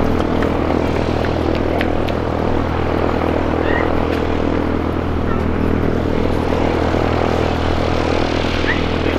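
Boeing 787-9's jet engines running at idle as the airliner taxis: a steady, even hum with low tones that holds without change.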